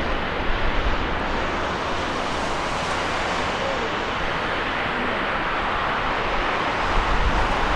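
Jet airliner engines on landing approach, a steady rushing noise, with strong wind buffeting the microphone in low gusts that grow near the end.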